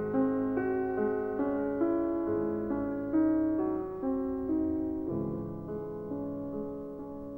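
Background piano music: a melody of held notes over sustained low chords.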